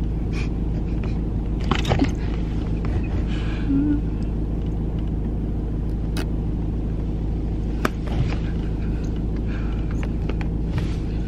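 Car heard from inside the cabin: a steady low rumble with an even engine hum. A couple of short sharp clicks stand out, one about two seconds in and one near eight seconds.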